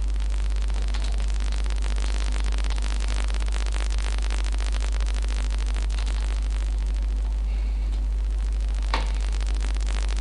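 Steady low electrical hum with loud hiss and static from the recording microphone line, unchanging throughout.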